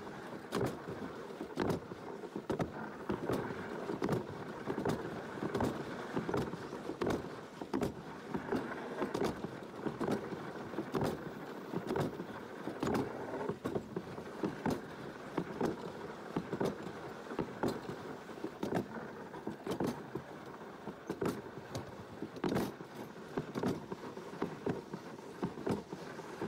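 Plastic summer-toboggan sled running down a concrete trough track: a steady rolling rumble with frequent short knocks and rattles, about one or two a second.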